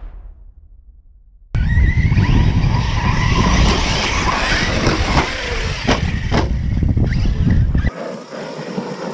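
The fading end of a boom, then, about a second and a half in, large brushless electric RC trucks driven hard on dirt cut in: the rising whine of their motors over tire and dirt noise, with a few sharp knocks around the middle.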